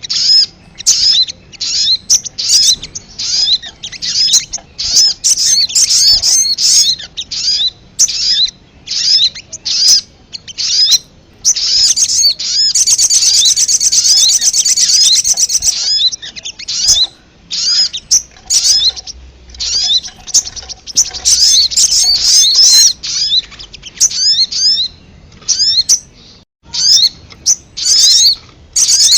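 Sogon (sogok ontong) bird lure call: loud, rapid high-pitched chirping in busy runs of a few seconds each, broken by short pauses. This is the excited back-and-forth calling of male and female birds that is played to draw wild sogon in.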